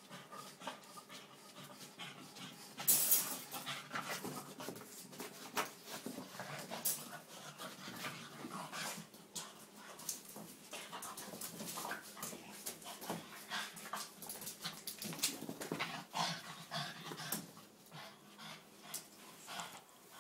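Boston terrier panting and whimpering as it comes out of an epileptic seizure, with irregular sharp clicks and scuffs throughout, the loudest cluster about three seconds in.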